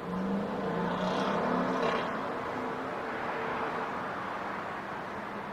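A motor vehicle passing in city traffic: engine hum and tyre noise swell over the first two seconds, then fade back into steady traffic noise.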